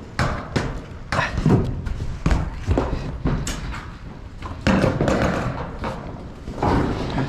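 Repeated irregular thumps and knocks on a corrugated galvanized metal roof panel, about a dozen over several seconds.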